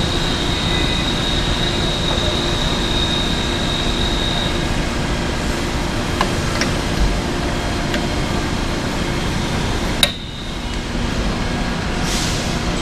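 Steady machine running noise in a machine shop, with a thin high whine that fades out about four seconds in. A few light clicks follow, then a sharp click about ten seconds in as the tap holder goes into the tapping arm's head.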